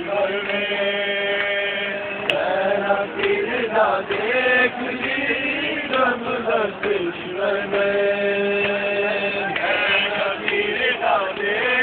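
A man's voice chanting a nauha, a Shia Muharram lament, in drawn-out notes. Long notes are held near the start and again about two-thirds of the way through, with shorter wavering phrases between.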